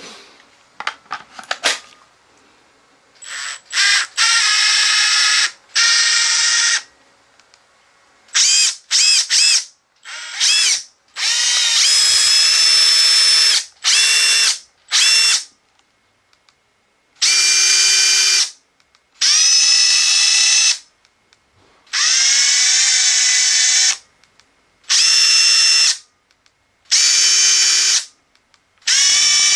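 Makita TD172D brushless impact driver running free with no load in about a dozen short trigger pulls of steady motor whine, some rising in pitch as the trigger is squeezed and at different speeds from pull to pull. Light clicks come before the first run.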